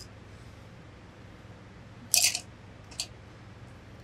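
Two short scratchy strokes of a pen marking a fur coat's canvas interlining, about two and three seconds in, over a faint steady low hum.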